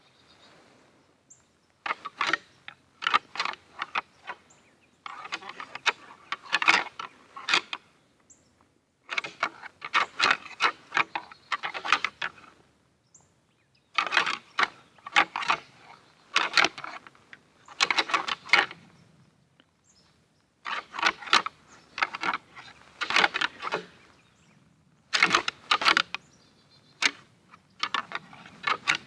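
Deer rattling to imitate two bucks fighting: hard clicking and clattering in several bursts of a few seconds each, with short quiet pauses between them.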